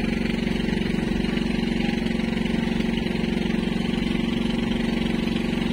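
Outrigger fishing boat's engine idling at a steady, even beat, with no change in speed.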